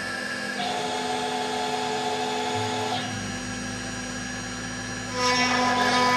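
6090 CNC router's spindle running with a small carving bit engraving wood, its stepper motors whining in tones that change as the head moves. It grows louder about five seconds in, with rising and falling whines.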